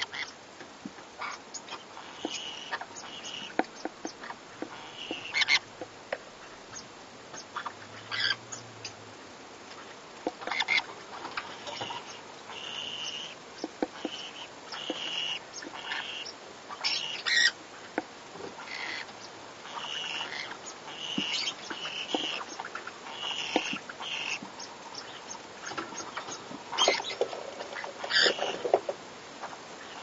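Pineapple conures, a colour form of the green-cheeked conure, calling while mating: short, high notes repeated in small clusters, with scattered sharp clicks in between.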